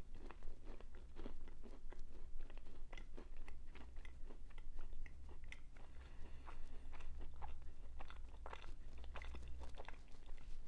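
A person chewing a mouthful of untoasted Ghetto Gastro PB&J toaster pastry, with irregular crunching and crackling throughout. The pastry is firm enough that it could use toasting to soften it.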